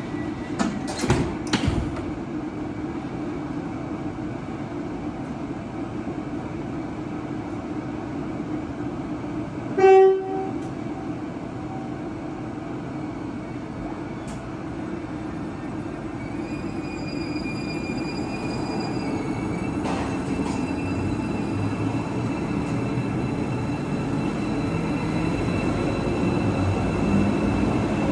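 KTX-Eum high-speed electric train at a platform: a few clunks in the first two seconds, then one short horn blast about ten seconds in. From about halfway the train starts to pull away, its high inverter and traction-motor whine and running noise slowly getting louder.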